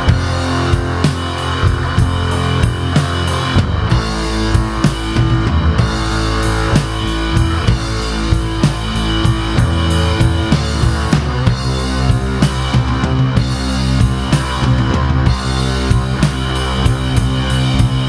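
Rock music from a band recording: a steady drum-kit beat with guitar.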